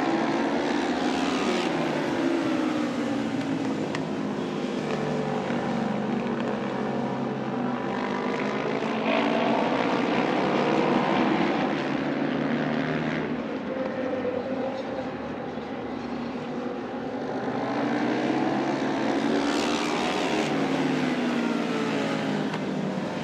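Several racing motorcycle engines running at high revs as the bikes lap an oval track, their pitch rising and falling as they pass and go through the turns.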